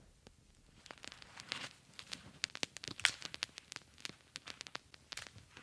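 Small campfire of twigs and sticks crackling, with sharp irregular pops that come thicker from about a second in.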